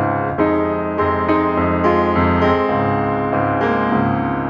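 Instrumental background music: piano notes and chords struck every half second or so over held lower tones.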